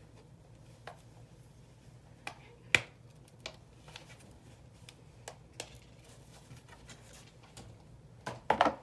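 Handling sounds of an iPad and its case: scattered light clicks and taps, the sharpest about three seconds in and a quick run of clicks near the end.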